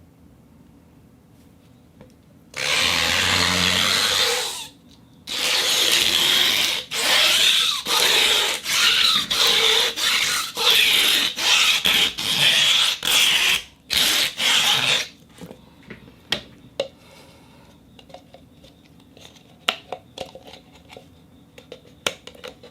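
Rosined rubber band rubbed against a rosin board for a rubber-band sound effect: one long stroke lasting about two seconds, then a quick run of about a dozen shorter strokes with brief gaps between them. After that come only faint scattered clicks.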